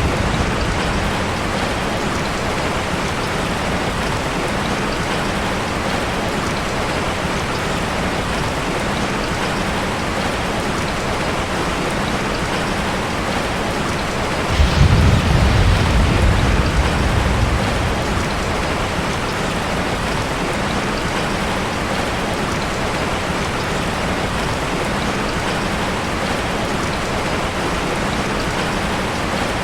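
Steady rain falling on a surface, an even hiss of drops. About halfway through, a low rumble comes in suddenly, louder than the rain, and fades out over about three seconds.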